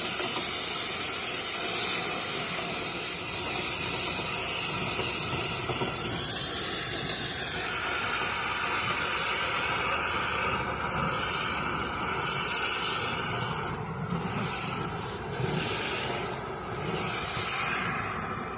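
Strong rush of air blowing out through a clothes dryer vent duct during vent cleaning: a steady loud hiss that comes and goes in uneven surges in the last few seconds.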